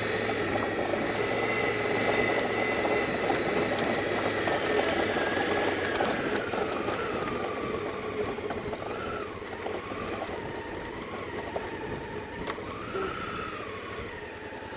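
Honda Africa Twin adventure motorcycle running along a rough dirt track, its engine note mixed with wind and tyre noise. A whining tone holds steady, falls about halfway through, then rises and falls briefly a few times.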